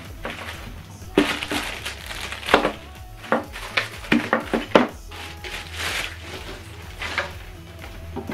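Handling noise on a tabletop: a string of sharp knocks and clicks as small speaker boxes and bagged cables are set down and moved, with plastic bags crinkling. The knocks cluster in the first half.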